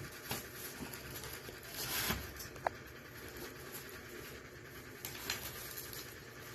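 Black plastic wrapping being handled and peeled off a packed tool by hand: faint rustling and crinkling, louder about two seconds in, with a short squeak just before three seconds and a few light clicks near the end.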